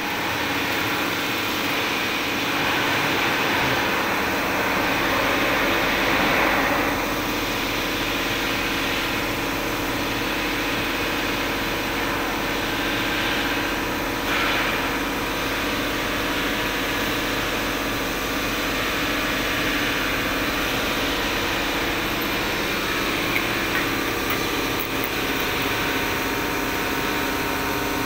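Steady machine-shop noise of a horizontal boring machine at work, its spindle cutting into a loader arm under a stream of coolant. The sound is a little louder for several seconds near the start.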